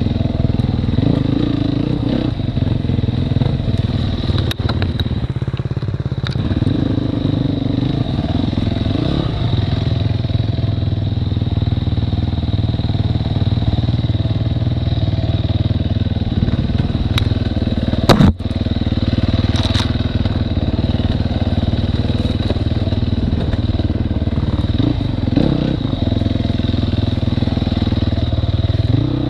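Enduro dirt bike engine running and revving up and down as it is ridden over a rough woodland trail. A single sharp knock comes about 18 seconds in.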